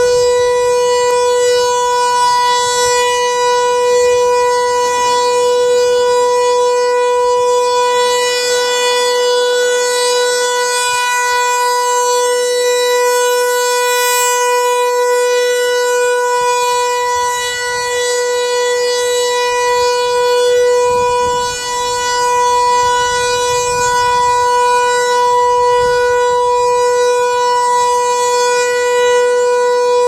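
American Signal Corporation T-128 rotating tornado siren sounding its steady alert signal for a routine test: one unbroken tone at a fixed pitch, swelling and fading a little as the rotating head sweeps around.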